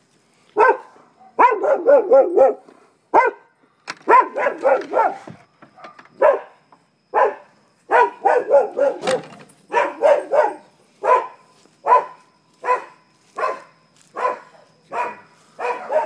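Dogs barking over and over, first in quick runs of several barks, then in single barks at a steady pace of about one every three-quarters of a second.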